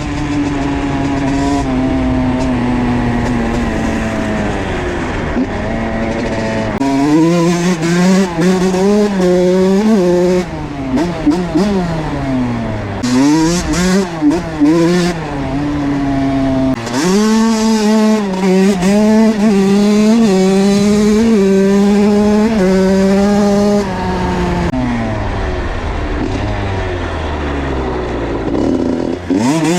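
2007 Honda CR85's two-stroke single-cylinder engine, breathing through a Pro Circuit R-304 Shorty silencer, revving up and down repeatedly as the bike is ridden. It holds a steady high note for several seconds past the middle, falls away to a lower pitch, then revs up sharply near the end.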